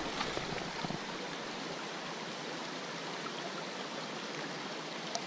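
Steady rush of a shallow creek running over rocks and riffles, with a faint click or two from handling near the start and the end.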